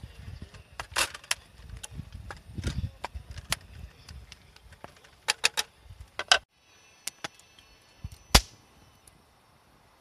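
Wood campfire crackling and popping under a pan of stew, with many sharp pops scattered over a low rumble of the flames. About six and a half seconds in it drops to a much quieter background, broken by one loud sharp crack.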